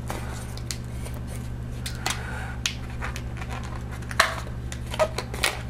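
Hands tying knots in the ends of a black latex modelling balloon: scattered light clicks and rubs of the latex, with a brief faint squeak about two seconds in, over a steady low hum.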